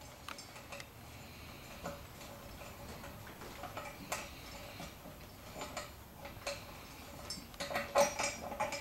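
Scattered light metallic clicks and clinks of an 11/16 socket being worked on a brass valve seat inside an old Kohler Niedecken shower valve body, coming irregularly and bunching up near the end.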